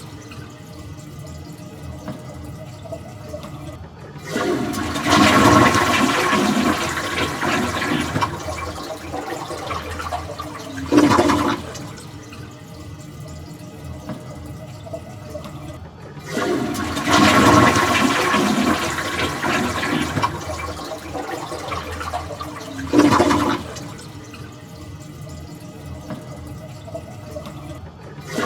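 Toilet flushing over and over, about every twelve seconds. Each cycle is a short loud gush, a few seconds of quieter running water, then a longer loud rush of water lasting about six seconds.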